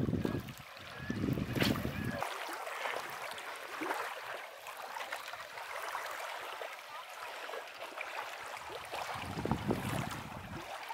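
Wind buffeting the microphone, a low rumble for about the first two seconds and again near the end, over a steady rush of small waves lapping at the shore.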